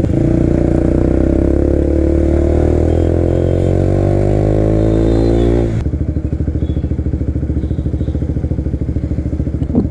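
KTM RC 200's single-cylinder engine pulling in gear, its pitch climbing slowly. About six seconds in the throttle closes and it drops to a low, pulsing idle as the bike slows.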